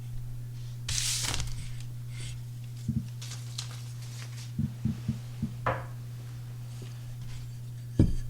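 A computer hard drive gives a steady low hum throughout, under small handling sounds: a brushing swish about a second in, a few soft thumps, and a sharp knock near the end.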